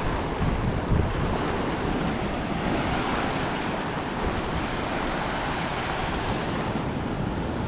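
Small waves breaking and washing up a sandy beach, a steady surf wash, with wind buffeting the microphone, heaviest in the first second.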